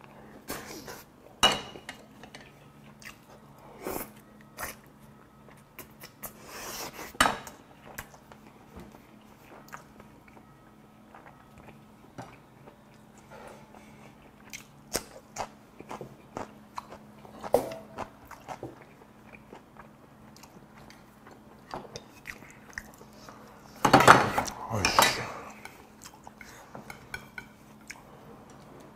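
Close-miked chewing and biting of braised pork back ribs, kimchi and rice, with short clicks of chopsticks and a wooden spoon against the pot and bowls. There is a louder burst of eating noise near the end.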